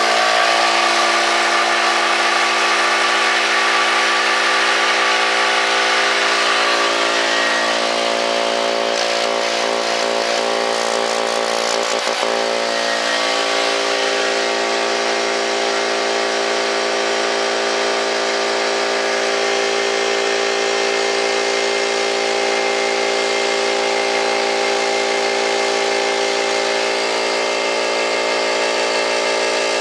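Mastercraft 8-gallon oil-lubricated air compressor with a 2 hp motor running steadily on its first start, the pump filling the tank.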